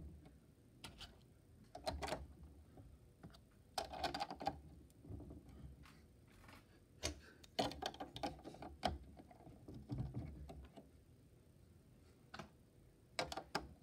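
LEGO bricks and plates handled and pressed onto a model, making scattered, irregular plastic clicks and light clatter.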